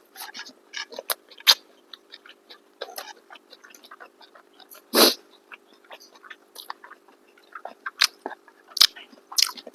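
Close-miked eating of chicken biryani and kababs: scattered chewing, crunching and small clicks, over a faint steady hum. About five seconds in comes one loud, short cough from someone with a cold.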